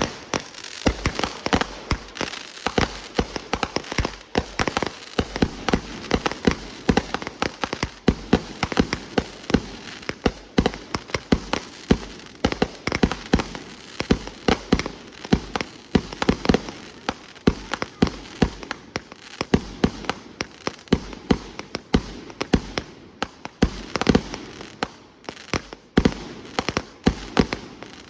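Consumer fireworks going off in a dense, irregular string of sharp pops and crackles, with louder bangs scattered through it.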